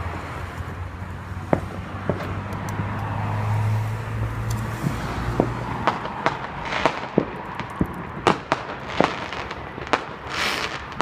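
Fireworks going off: scattered sharp bangs and cracks that come thicker in the second half, with a hissing burst near the end.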